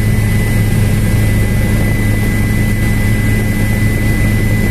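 Helicopter cabin noise in flight: the engine and rotors make a loud, steady drone, with a thin constant whine above it.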